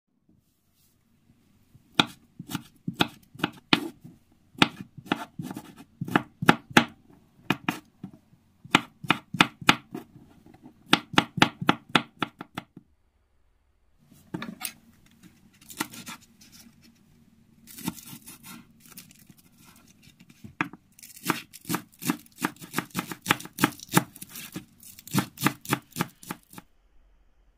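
Kitchen knife chopping quickly on a bamboo cutting board: two long runs of crisp, rapid strikes, several a second, with a short pause between. The second run is green onion being sliced finely.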